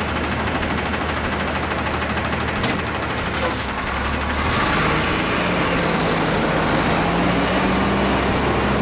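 Natural-gas front-loader garbage truck's engine idling, then running faster about halfway through as the truck pulls away.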